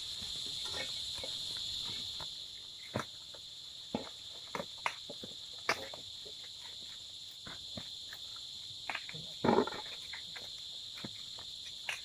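A steady high-pitched drone of insects chirping in the field, with scattered sharp snaps and rustles of corn husks being torn off ears of corn by hand, one louder tear about two-thirds of the way through.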